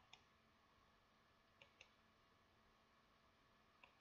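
Computer mouse clicking: three pairs of faint, sharp clicks, near the start, about a second and a half in, and near the end, over near silence.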